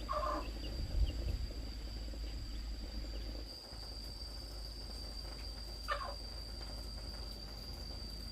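A steady, high-pitched insect drone runs throughout, with two short chicken clucks: one right at the start and one about six seconds in.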